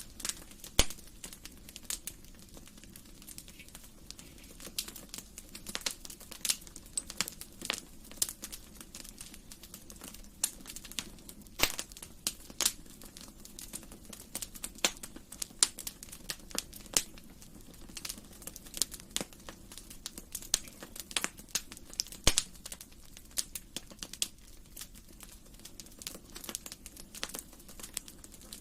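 Wood fire crackling in a fireplace: irregular sharp pops and snaps, several a second, over a soft low hiss.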